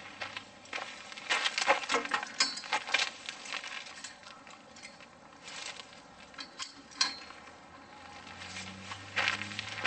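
Scattered clicks, clinks and rattles of a Can-Am HD 3500 winch's cable and hook being pulled out by hand off the free-spooled drum. A faint low hum comes in near the end.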